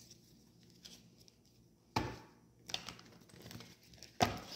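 Tarot cards being handled and shuffled: two short, sharp bursts of card noise about two seconds apart, with softer rustling between.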